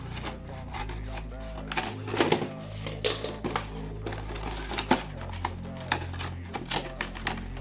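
Scissors snipping the tape on a cardboard box, then the box's cardboard flaps being handled and pried open: a run of irregular sharp clicks, snips and crackles.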